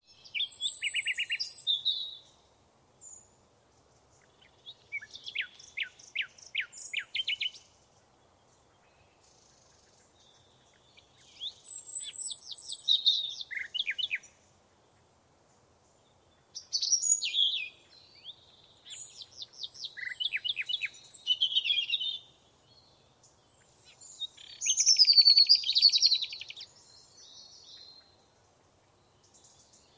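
Songbirds singing in separate phrases of a couple of seconds each with short pauses between, several phrases ending in rapid trills.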